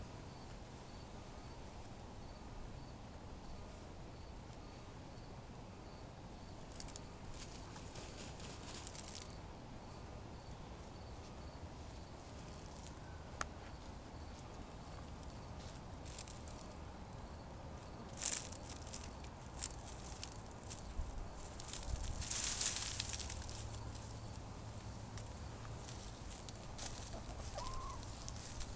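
Hens dust bathing in loose, dry garden soil: soft scattered rustling and scratching of dirt as they wriggle and flick it through their feathers. Several louder bursts of scratching come along the way, the longest about two-thirds of the way in, and a hen gives a brief call near the end.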